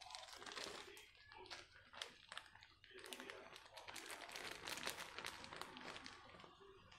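Whole spices (shahi jeera, cloves, black peppercorns and cinnamon) crackling and sizzling in hot oil in a steel kadai. It is a faint, dense patter of small pops that thickens through the middle.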